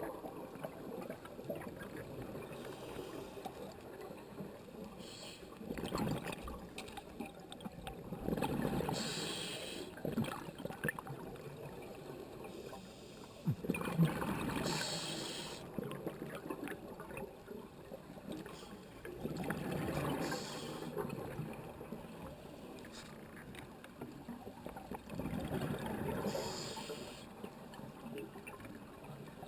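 Underwater sound of scuba breathing through a regulator: a burst of exhaled bubbles about every six seconds, with a low water gurgle between.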